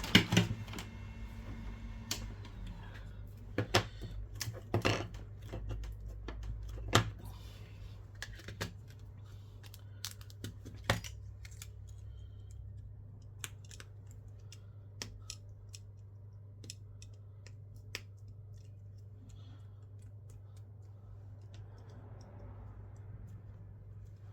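Scattered sharp clicks and taps of small hand tools and phone parts being handled on a workbench. They are loudest and most frequent in the first seven seconds and become sparse after that, over a steady low hum.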